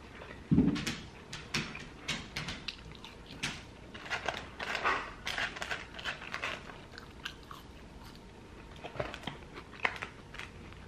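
A person chewing a burger close to the microphone: irregular wet mouth clicks and smacks. There is one low thump about half a second in.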